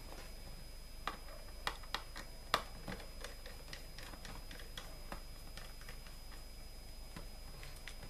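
Light, sharp plastic clicks and taps from a laptop's bottom case as its back cover is worked loose with hands and a small tool. A cluster of clicks starts about a second in, the loudest comes about two and a half seconds in, and they thin out after about five seconds.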